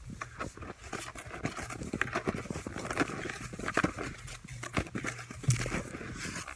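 Footsteps crunching in snow, about one step a second, with rustling and handling noise in between.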